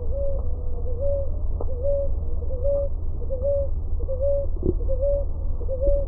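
Ruddy ground dove (rolinha-roxa) singing: a steady series of short, low coos, a little over one a second, over a steady low background hum.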